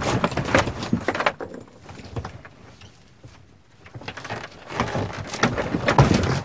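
Clattering and knocking of a bus's fiberglass overhead compartment and its fittings being worked loose by hand, in two bouts of quick knocks and rattles with a quieter stretch in the middle.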